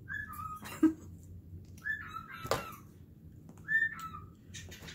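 A pet's high whistle-like call, a higher note dropping to a lower one, repeated three times about two seconds apart. A short lower vocal sound comes about a second in, and a sharp tap near the middle.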